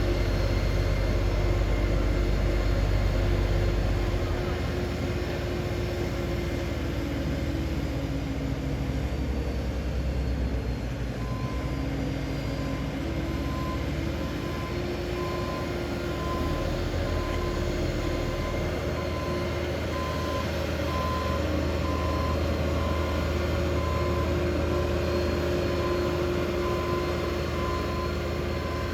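Heavy road-paving machinery engines running steadily, with a vehicle's reversing alarm starting about a third of the way in and beeping about once a second.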